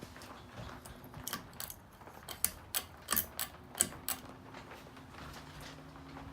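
Encon Princess ceiling fan: a quick run of sharp mechanical clicks and rattles over about three seconds, then the motor's steady hum, which grows stronger with a lower tone joining in.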